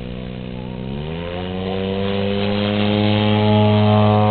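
Radio-controlled model airplane's engine throttling up for takeoff: its pitch rises over the first second or so, then holds steady at full throttle while growing louder as the plane takes off.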